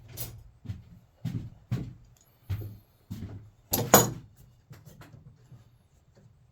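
A run of irregular wooden knocks and clunks as the track saw jig and tools are handled and set down on the tabletop, the loudest about four seconds in, then a few lighter taps.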